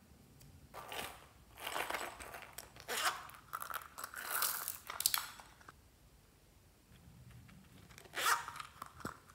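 Hands handle a zippered fabric pouch. Crinkly rustling and crunching come in several bursts over the first half, then a short, sharp zip sounds once near the end as the zipper is worked.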